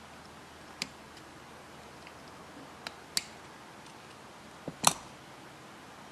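A few scattered sharp clicks and taps of small tools working on a radio's metal IF transformer can, the loudest near the end.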